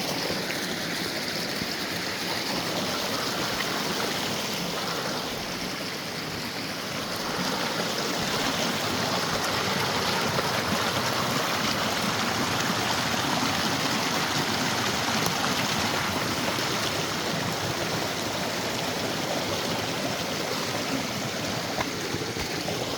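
Mountain creek rushing over rocks, a steady full noise of fast water loud enough to drown out talk; it dips briefly about a quarter of the way in, then swells again.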